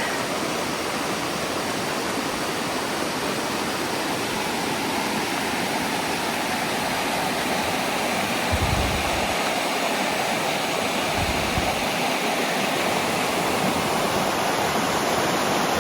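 Stream of water rushing steadily below a footbridge. Two brief low thumps come about halfway through.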